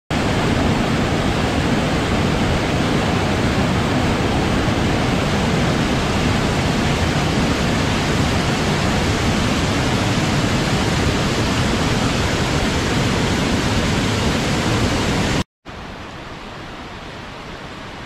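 Small waterfall pouring over boulders into a pool: a steady, loud rush of water. Shortly before the end it cuts out abruptly for a moment and comes back noticeably quieter.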